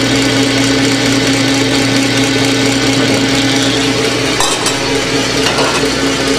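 Commercial stand mixer running at speed, its wire whisk beating eggs, yolks and hot sugar syrup into a sabayon, with a steady motor hum at a constant pitch.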